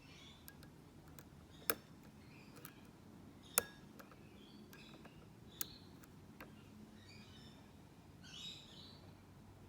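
Lock pick working the pins of a Mako padlock held under tension: faint scratching with small clicks, and three sharper clicks about two seconds apart.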